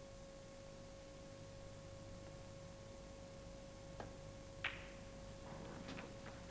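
Snooker cue tip striking the cue ball with a faint click about four seconds in, then a sharper click a little over half a second later as the cue ball hits the pink. A steady electrical hum runs underneath.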